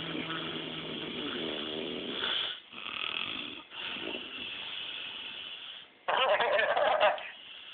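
A man snoring in his sleep: a run of long, rough breaths with short pauses between them, and a louder, rattling snore about six seconds in.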